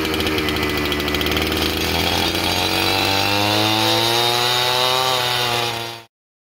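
Small gas engine of a handheld earth auger running under load as it bores a post hole, its pitch rising a little in the second half. The sound cuts off suddenly about six seconds in.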